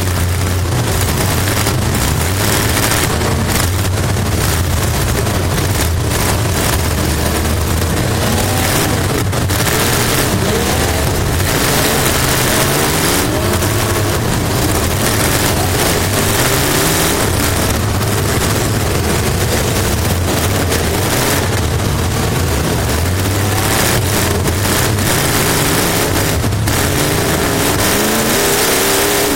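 Race car engine heard from inside the car at racing speed, its pitch dropping off and climbing again several times as the driver lifts and gets back on the throttle, over a steady rush of wind and road noise.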